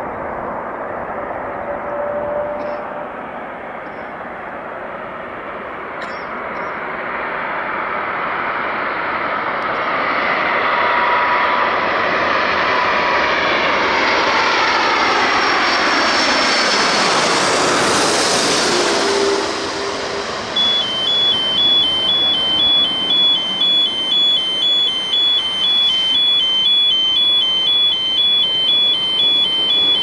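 Airbus A330 Voyager tanker's Rolls-Royce Trent turbofans on landing approach, growing louder as it passes low overhead, with the engine whine dropping in pitch. About two-thirds of the way in, a car alarm set off by the noise starts wailing in a fast-alternating two-tone pattern.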